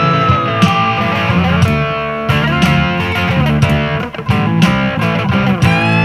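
Instrumental blues-rock: electric guitars over bass and drums, with a held guitar note bending slightly down in pitch in the first second.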